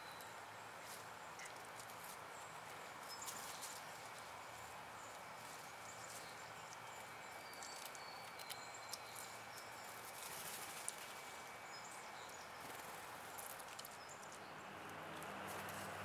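Faint outdoor ambience with a steady hiss and short, high, thin bird notes in the distance, broken by a few sharp taps and clicks as a blue jay picks at peanuts in the shell and seed on a stone wall.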